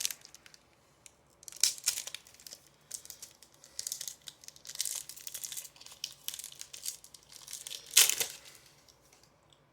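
Wrapper of a baseball card pack being torn open and crinkled: a run of irregular crackling rustles, with the loudest one near the end.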